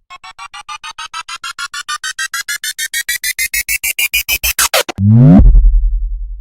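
Synthesized riser sound effect: short electronic notes repeating faster and faster while climbing in pitch for about five seconds, then a loud bass drop that sweeps down into a deep sustained boom.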